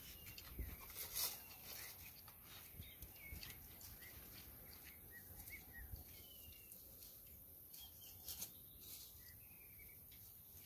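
Near silence: faint, scattered bird chirps over a steady hiss, with a couple of soft clicks.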